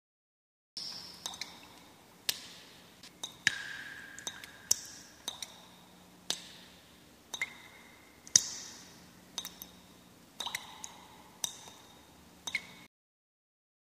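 A run of sharp, irregular plinks, about one or two a second, each with a short ringing tone at a different pitch, over a faint low hum. It cuts in from silence about a second in and cuts off near the end.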